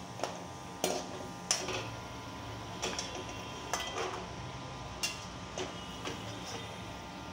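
Perforated steel slotted spoon clinking and scraping against an aluminium kadai as cashews are stirred and scooped out of hot frying oil, about ten irregular sharp metal knocks, over a faint sizzle of the oil.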